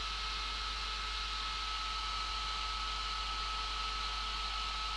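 Steady blowing hiss of a hot-air rework station's air nozzle and a bench fume extractor's fan running together, with a thin steady whine and low mains hum beneath.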